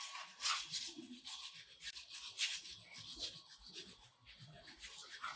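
Irregular short scraping strokes of something being rubbed by hand against a concrete stair step.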